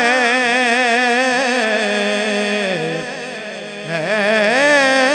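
A man singing an Urdu naat into a microphone, drawing out long melismatic notes with a strong vibrato; the held line falls away about three seconds in, and a new phrase rises about a second later.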